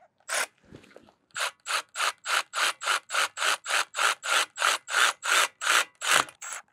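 Milwaukee M12 Fuel cordless ratchet spinning a brake caliper slide bolt in, a steady run of evenly spaced clicking pulses, about three a second, starting about a second and a half in.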